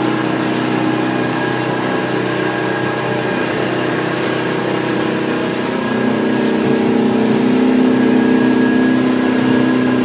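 Hardy Navigator motor boat's inboard engine running steadily, heard from inside the wheelhouse; about six seconds in its note changes and it gets a little louder.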